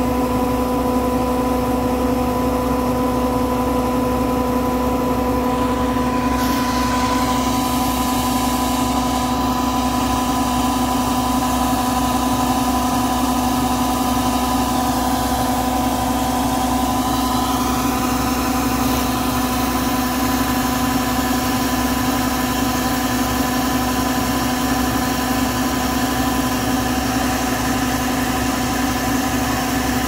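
Rice combine harvester running steadily with a constant hum while it unloads threshed paddy through its grain auger spout.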